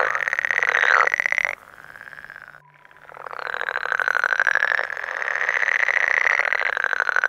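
Frog calling: a long, rapidly pulsing trill-like croak that stops about a second and a half in, then a second long call starting about three seconds in and lasting about five seconds.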